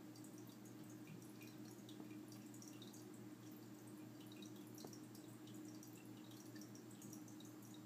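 Submersible internal aquarium filter running: a faint steady hum with a constant patter of small bubbles and trickling water at the surface.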